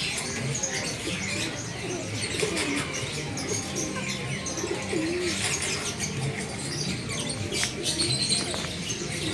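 Doves cooing in low, wavering tones, with many small birds chirping high and fast all around.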